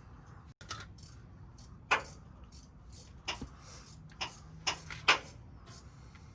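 Irregular sharp clicks and snaps from hand tools working on wires, about six over several seconds, the loudest about two and five seconds in.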